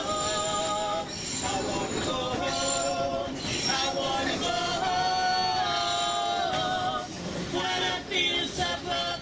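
Several voices singing together in harmony with long held notes, over the steady low rumble of the moving train.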